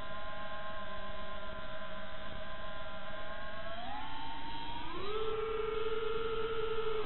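Brushless motors and propellers of an FPV quadcopter whining through the onboard recorder. A steady hum climbs in pitch in two steps, about four and five seconds in, as the throttle is pushed up for a climb, then drops sharply at the very end.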